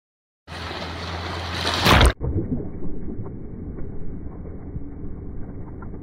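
Shallow ocean surf washing over a reef, recorded with the camera at and under the water's surface. A rush of water and wind noise with a low hum swells to a loud surge about two seconds in and cuts off sharply. It is followed by muffled underwater sloshing with a low rumble and faint ticks.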